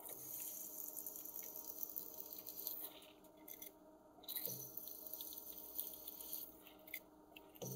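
Small brush sweeping aluminium chips across a milling vise and workpiece, as a soft scratchy swishing in two spells, over the faint steady hum of the running milling machine.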